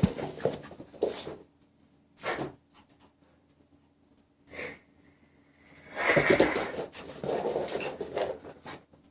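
Maltese dog breathing hard in noisy bursts, panting from exercise. The longest burst comes about six seconds in and lasts over two seconds.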